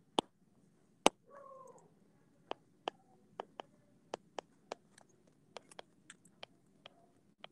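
A stylus tapping and clicking on an iPad's glass screen while an equation is handwritten: irregular sharp clicks, about two a second. A little over a second in there is a brief wavering pitched squeak.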